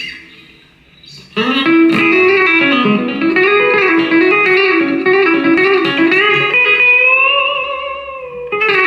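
Sire H7V electric guitar playing a single-note lead phrase with string bends and vibrato, starting after a short pause of about a second and a half. The phrase ends on a long held, wavering note that fades, and a new note is picked near the end.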